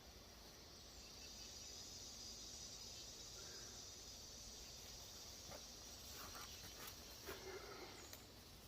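Faint, steady high-pitched insect chorus. A few soft clicks and rustles come in during the second half.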